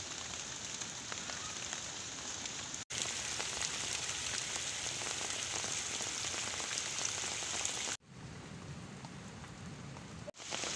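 Heavy rain falling steadily on leaves and plants, broken by brief sudden drop-outs where the clips change. For about two seconds near the end it turns quieter and lower, with water running along a concrete irrigation channel.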